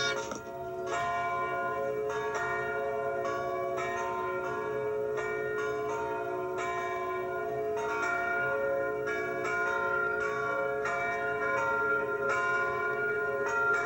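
Several church bells ringing in a tower, a new stroke roughly every half second. Each strike hangs on with a long ringing tone, and the different pitches overlap into a continuous peal.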